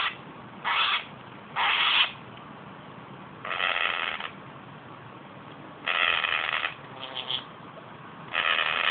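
A pet making short trumpet-like, fart-like calls, about six of them, each under a second long and a second or two apart.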